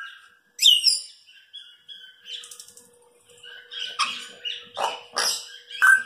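Congo African grey parrot calling: a sharp falling whistle, a few short whistled notes and a quick run of clicks, then several loud harsh calls and a whistle near the end.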